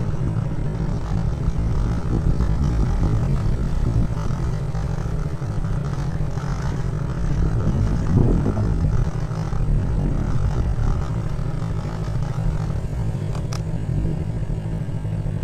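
Motorcycle engine running steadily with a low hum, swelling briefly about eight seconds in.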